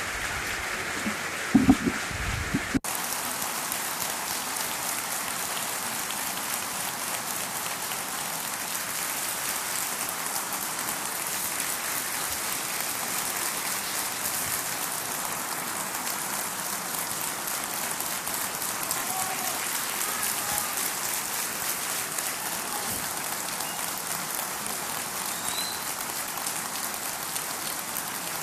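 Large audience applauding steadily, a long ovation of dense clapping. A few low thumps stand out in the first few seconds.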